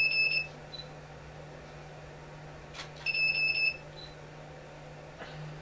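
Two short electronic beeps about three seconds apart, each a high double tone with a fast flutter lasting about half a second.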